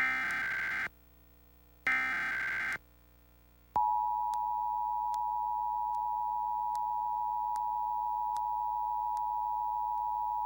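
Emergency Alert System test: the last two of the three SAME header data bursts, each about a second long with a second's pause between. About four seconds in, the EAS two-tone attention signal (853 and 960 Hz together) begins and holds steady.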